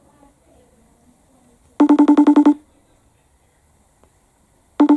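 iPhone FaceTime outgoing call ringing: one burst of about ten quick pulses of the same tone, lasting under a second, about two seconds in, with the next ring starting right at the end. The call is still ringing unanswered.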